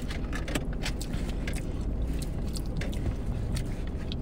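Close-up chewing and eating of a wet burrito: many short, scattered mouth clicks over a low steady rumble.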